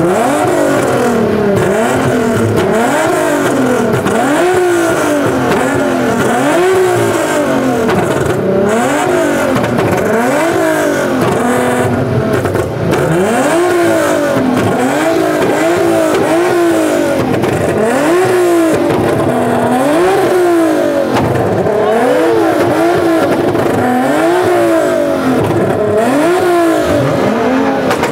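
A car engine being revved over and over, each rev climbing and dropping in pitch, about once a second.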